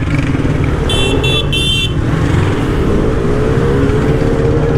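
Idling motorcycle and traffic engines in a street jam, with a high vehicle horn beeping three times in quick succession about a second in. In the second half an engine note rises slowly.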